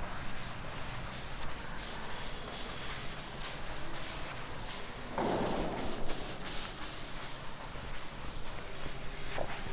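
Writing on a classroom board: a run of short scratching strokes, with a louder, duller rub about five seconds in.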